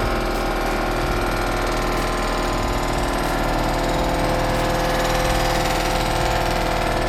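A shop machine running steadily, with fast even pulsing underneath.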